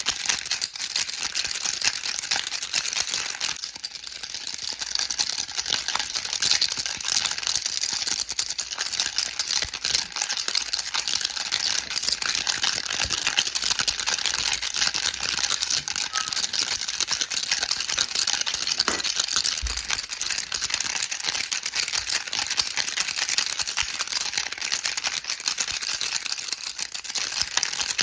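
A baby rattle being shaken on and on: a dense, steady stream of fine clicks from the beads inside, with a short dip in level about four seconds in.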